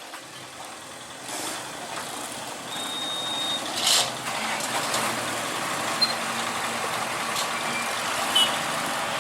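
Heavy trucks' engines running amid road traffic noise that grows louder, with a few short high-pitched beeps and a sharp hiss about four seconds in.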